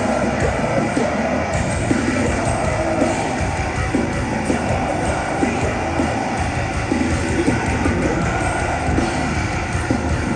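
Metalcore band playing live: heavy guitars, bass and drums at full volume with a steady driving beat.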